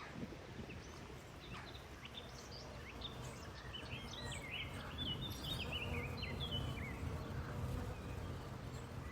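A songbird sings a run of quick, varied chirping notes from about a third of the way in until near the end, over a steady low outdoor background noise.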